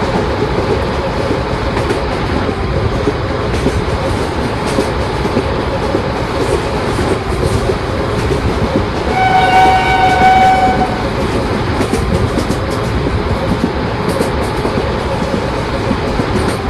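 Indian Railways electric train running past on the track, with steady wheel and rail noise. About nine seconds in it gives one horn blast lasting roughly two seconds.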